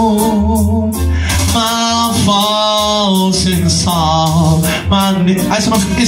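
A man singing long, wavering notes into a microphone over a backing track with a repeating bass line.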